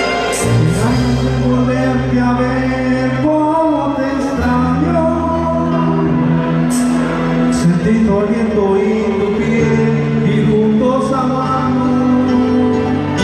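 Live band playing a slow ballad, with a male vocalist singing over held chords, bass guitar and electric guitars, and an occasional cymbal stroke.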